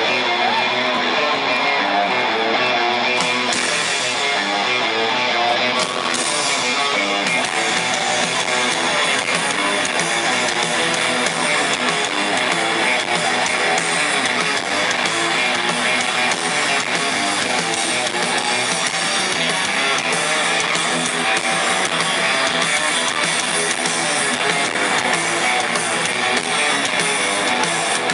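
Rock band playing live at stadium volume, recorded from the crowd: electric guitar to the fore over bass and drums, continuing without a break.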